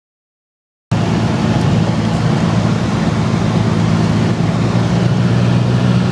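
Silent for about the first second, then the steady drone of a Cessna T-210 Centurion's turbocharged six-cylinder piston engine and propeller in cruise, an even low hum over a broad rushing noise.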